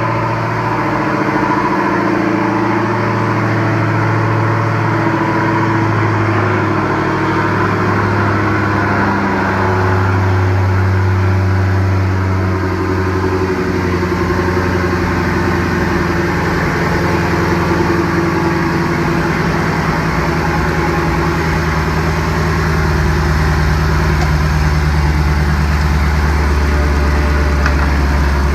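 Boosted V8 engine idling steadily just after its first start on new, larger fuel injectors; its idle settles to a lower pitch about halfway through.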